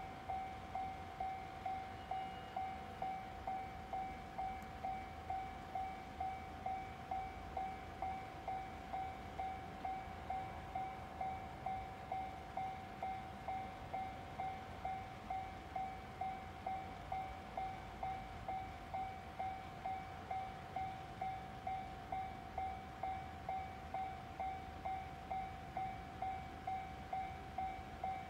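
Japanese railway level-crossing warning bell ringing: an electronic chime repeated evenly a little under two times a second, sounding while the crossing's red lights flash to warn that a train is approaching.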